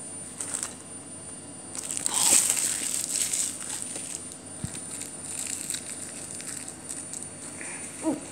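Clear plastic wrap crinkling and crackling as it is handled, loudest about two seconds in, then softer rustles and small clicks. A brief squeak-like pitched sound comes near the end.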